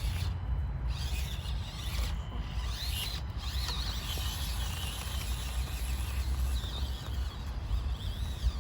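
Small electric motor and gears of an Axial SCX24 Deadbolt 1/24-scale RC crawler whining in wavering high-pitched spurts as it crawls over rocks, over a steady low rumble.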